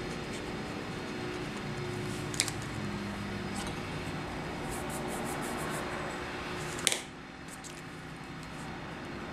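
Steady low room hum, broken by two sharp clicks, a light one about two and a half seconds in and a louder one about seven seconds in, as a pen-style eraser is set down on the drawing paper and handled again.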